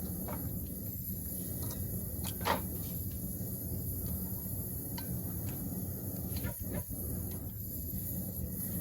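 Scattered clinks and knocks from metalwork tools and stock being handled in a blacksmith's workshop, over a steady low hum. The loudest knock comes about two and a half seconds in.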